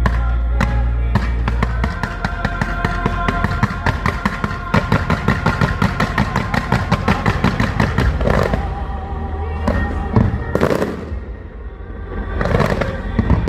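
Music playing loud over a fireworks display, with firework bursts through it: a rapid run of sharp pops in the first half, then several bigger bursts in the second half.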